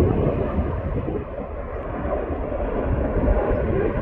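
Boeing 777-300ER's GE90 turbofan engines at takeoff power as the airliner departs: a loud, steady, deep rumble, dipping slightly about one and a half seconds in.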